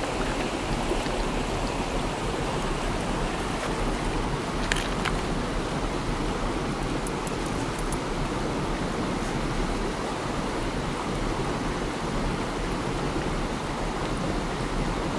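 Shallow stream running over rocks, a steady rushing of water. A few faint clicks sound about five seconds in and again around seven to eight seconds.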